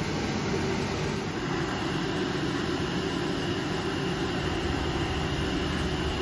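Omnitech Chief 5x12 CNC router running a cutting program, a steady mix of machine running noise and dust-collection airflow. A faint high whine comes in about two and a half seconds in.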